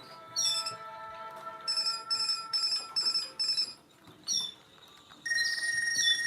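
Sharp GX17 mobile phone playing a polyphonic ringtone through its small speaker: a melody of short electronic notes over held chords, with a run of five quick repeated notes in the middle and a long high note near the end.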